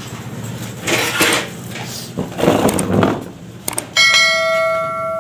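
Two brief whooshing noises, a click, and then about four seconds in a loud bell-like chime that rings on and stops abruptly: a subscribe-and-bell notification sound effect.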